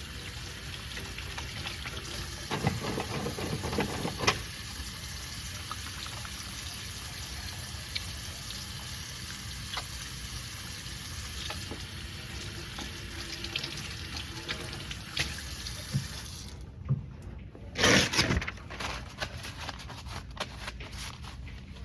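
Tap water running into a sink during handwashing, with a few splashes as hands move in the stream. The water is shut off about sixteen seconds in, and is followed by small clicks and a brief loud rustle.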